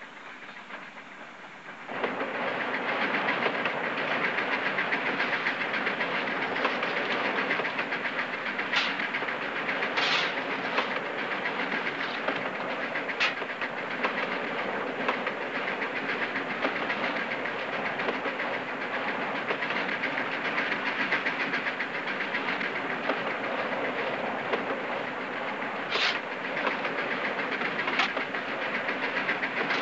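Steam train running at speed, its wheels clattering over the rails in a fast, steady rhythm. The sound comes in suddenly and loud about two seconds in, with a few sharp clicks standing out over it.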